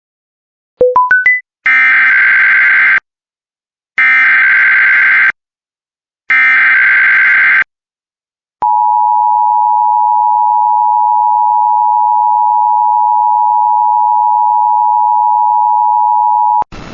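Emergency Alert System header for a weather warning: four quick rising beeps, then three screeching SAME data bursts about a second apart, then a steady attention tone held for about eight seconds before cutting off.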